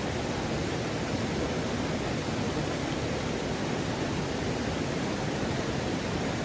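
Steady rushing of water at a river waterfall, an even, unbroken noise that is fullest in the low-middle range.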